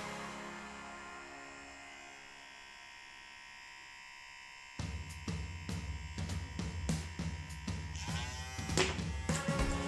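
Kemei electric hair trimmer running with a steady buzz, under background music that dies away and comes back with a beat about halfway through.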